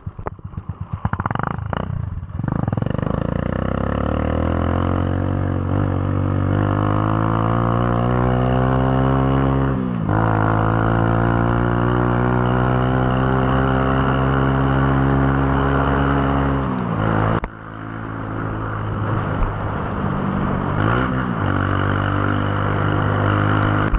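Motorcycle engine under way. A few sharp knocks come in the first two seconds, then the engine pulls with its pitch climbing, dips briefly about ten seconds in, and holds steady. It drops off sharply around seventeen seconds in and then picks up again.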